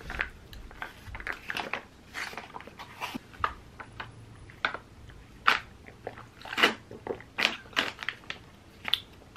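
A plastic spout pouch crinkling and crackling in short, irregular crackles as it is squeezed and drunk from.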